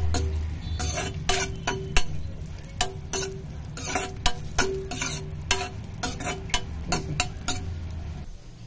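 Metal spoon stirring raisins frying in ghee in a steel pan: irregular scrapes and clinks against the pan, a few a second, each with a short ring, over light sizzling and a low steady hum. The clinks stop shortly before the end. The raisins are being fried until they puff up.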